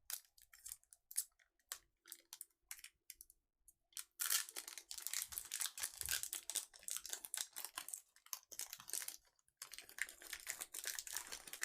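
Plastic packaging and trading cards being handled: a few light clicks and ticks, then from about four seconds in a long stretch of dense, quiet crinkling and rustling.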